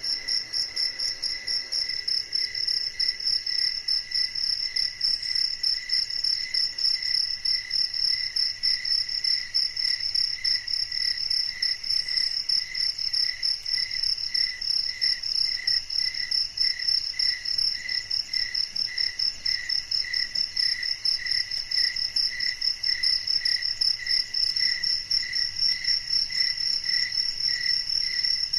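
Night insects chirping without a break: a fast, pulsing high-pitched trill layered over a slower, lower-pitched pulsing chirp.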